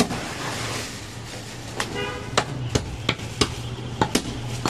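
A large butcher's knife cutting goat meat on a wooden chopping block: a run of sharp knocks, mostly in the second half. A brief vehicle horn toot about two seconds in, over a steady low hum.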